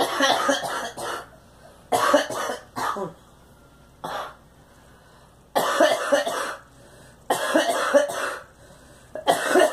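A girl coughing in repeated fits: six bouts, most of them a quick run of several coughs lasting about a second, with a single short cough about four seconds in and brief quiet between the bouts.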